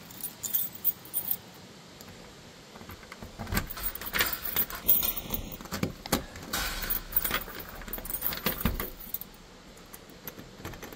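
A bunch of keys jangling and clicking in irregular bursts as keys are tried in a door lock.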